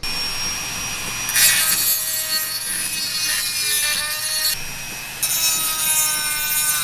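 Dremel rotary tool with a grinding stone grinding the edge of a freshly drilled hole in a chainsaw's sheet-metal muffler, to open up the exhaust. A high, steady motor whine starts suddenly, with harsh grinding noise that comes in about a second in, eases off briefly partway through and comes back as the stone bites again.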